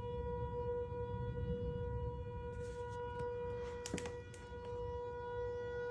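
Outdoor tornado warning siren sounding a steady tone that does not rise or fall, signalling a tornado warning, over a low rumble. A few sharp clicks come near the middle.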